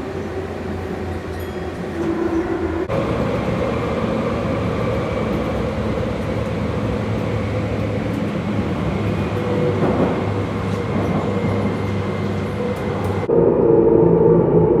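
Tokyu 8500 series subway train running: a steady hum of motors and wheels on rails, with several steady tones. The sound changes abruptly twice, about three seconds in and near the end.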